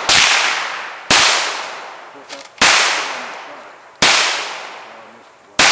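Series of five gunshots, about one to one and a half seconds apart, each cracking sharply and trailing off.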